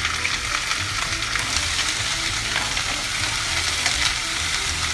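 Diced lamb sizzling and crackling steadily in hot butter in a frying pan as it starts to sear, with a metal spoon stirring and scraping the pieces around the pan.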